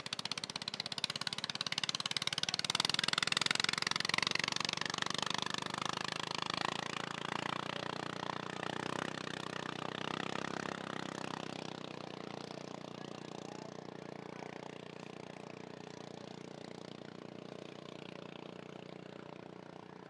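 A small engine with a rapid chattering beat, loudest a few seconds in, then fading slowly away as it passes.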